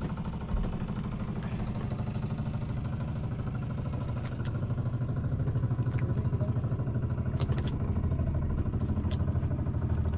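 Small fishing boat engine running steadily with an even, fast pulse, growing somewhat louder about four seconds in, with a few light clicks over it.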